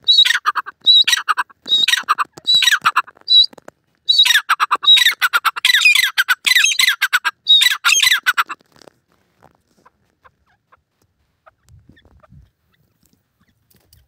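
Grey francolin calling: loud, rapid runs of repeated high notes in two bouts with a short break between them, stopping about nine seconds in.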